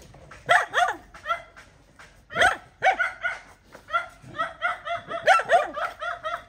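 A dog yelping and whining: a run of short high cries, several sliding down in pitch, coming quicker and closer together in the second half.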